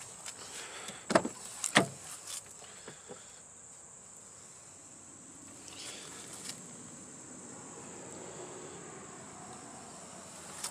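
Steady high-pitched chirring of insects, with two sharp clicks between one and two seconds in and a few fainter clicks later.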